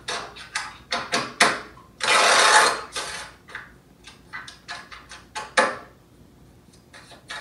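Tarot cards being shuffled: a run of sharp card snaps and clicks, with a short crackling riffle about two seconds in and more scattered snaps after it.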